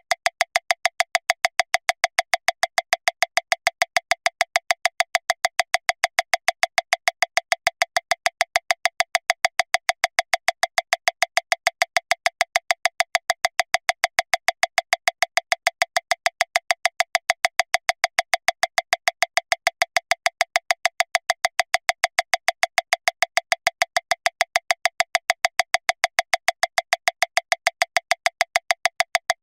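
Metronome clicking steadily at 405 beats per minute, one click every 0.148 seconds, about seven a second. The clicks are sharp and thin, all the same loudness, with no accented beat.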